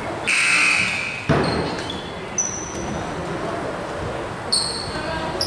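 Basketball game on an indoor court: a ball thuds on the floor about a second in, and sneakers squeak in short high chirps a few times, over voices in the echoing gym.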